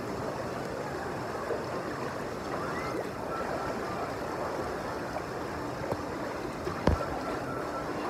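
Steady sloshing and splashing of water as several people wade through a lazy river's current, with a single sharp knock about seven seconds in.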